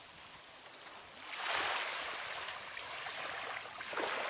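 Rushing water noise that swells about a second and a half in and stays steady after that.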